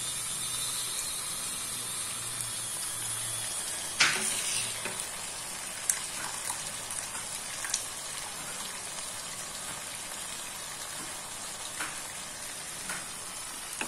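Chicken masala sizzling steadily in a pan on the gas flame while cooked rice is layered over it for dum biryani. A sharp metal clink about four seconds in, the loudest sound, and a few lighter clinks later, from the steel spoon against the pan.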